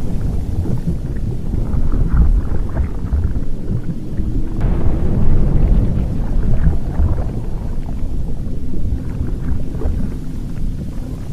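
Erupting volcano: a deep, continuous rumble that surges and eases, with irregular crackling over it, as from a lava fountain and flowing lava.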